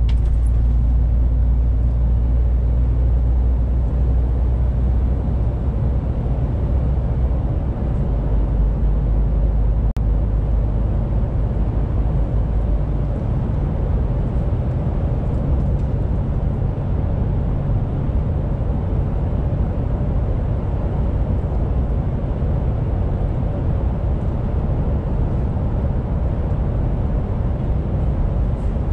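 Inside the cab of a 2021 MAN TGX 18.470 truck at cruising speed: the six-cylinder diesel's steady low drone mixed with road and tyre noise. The engine note shifts slightly about six seconds in.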